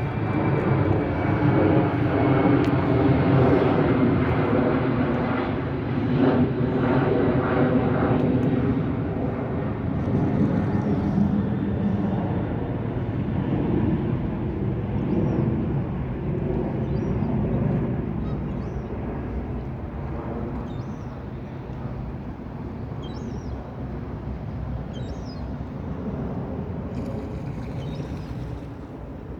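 Aircraft engine noise passing over, with a high tone that slowly drops in pitch. The noise is strongest early on and fades gradually over the second half.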